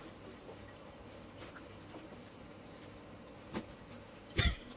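Faint scratching and crackling of crisp buttered toast being torn and picked apart by a child's fingers. A short click and then a louder thump come near the end.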